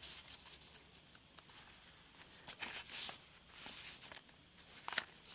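Paper pages of a handmade junk journal being turned and handled: soft rustles and small clicks, with a louder page-turning swish about three seconds in.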